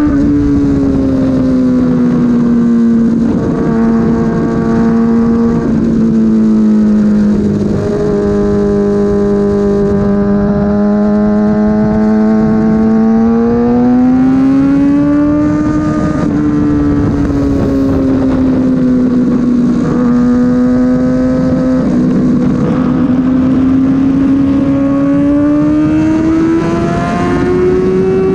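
Sport motorcycle engine running hard under a rider on twisty roads, its pitch rising and falling smoothly as the revs change, with a dip about halfway and a climb near the end.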